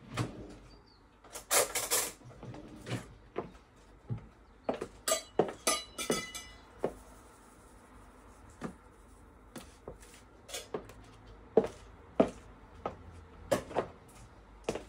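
Kitchen handling sounds: a cupboard opening and closing, and dishes and cutlery clinking, with a ringing cluster of clinks about five to six seconds in. Scattered sharp clicks of patent stiletto heels on a wooden floor run through it.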